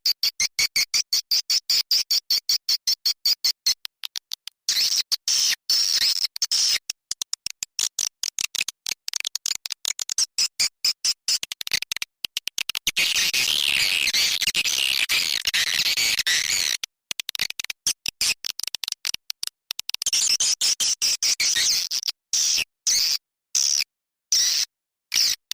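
Swiftlet call-lure recording of the kind played in swiftlet houses to attract the birds. It is a rapid train of high chirps and clicks, about ten a second, that thickens into a dense twittering chatter midway and breaks into separate bursts near the end.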